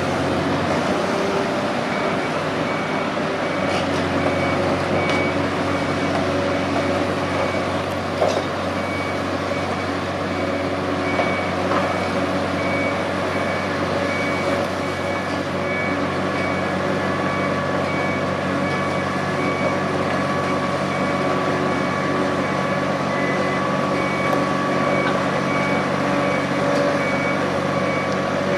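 Heavy construction machinery running steadily, with a reversing alarm beeping in an even repeating pattern from about two seconds in. A few short knocks, the loudest about eight seconds in.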